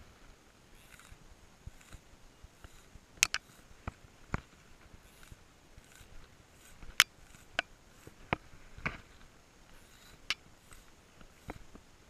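Handling noise from fly-fishing tackle: irregular sharp clicks and taps, about ten in all, the loudest about three seconds in and again about seven seconds in, over a faint quiet background.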